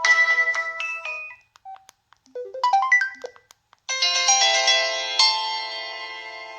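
Preloaded ringtone playing from an LG Revere Black Edition cell phone's speaker: an electronic melody of bright chiming notes. One phrase fades out after about a second, a brief run of quick notes follows, and a fuller chiming phrase starts about four seconds in.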